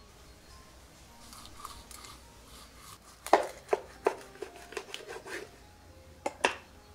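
Large knife cutting through a whole fish just behind the head on a wooden cutting board: a run of sharp crunching cracks and knocks as the blade goes through the bone and hits the board, the loudest a little over three seconds in, with two more near the end. Fainter scratchy sounds come first.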